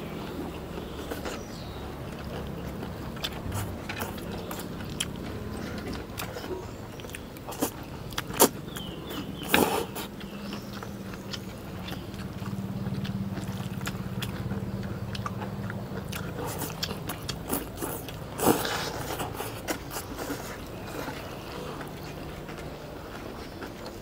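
Eating at a table: chewing, and chopsticks and spoons clicking and scraping against plates of stir-fried beef rice noodles, with a few sharper clinks. A steady low hum runs underneath.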